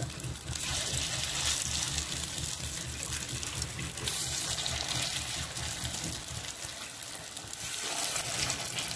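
Unniyappam batter sizzling as spoonfuls drop into hot coconut oil in the wells of an unniyappam pan. It makes a dense crackling hiss that swells several times, as each new spoonful goes in.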